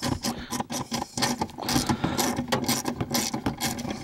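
Hand ratchet clicking in rapid, irregular back-and-forth strokes as a screw is backed out of a metal fuel pump access cover.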